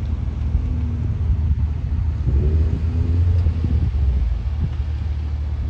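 Steady low rumble of a distant airliner's jet engines on the runway, with wind on the microphone.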